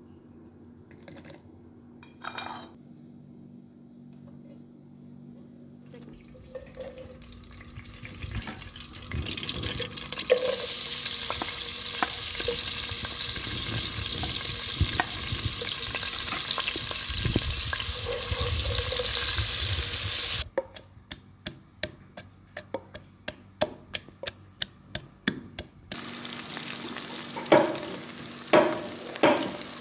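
Sliced onions frying in hot oil in a pot, stirred with a wooden spoon. It starts quiet with a single click, then the sizzle builds from about six seconds in and stays loud. Partway it gives way to a run of quick regular ticks, and near the end the sizzle returns with a few knocks of the spoon against the pot.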